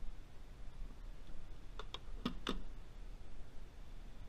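Four sharp clicks and knocks in quick succession, a little under two seconds in, over a faint steady low hum.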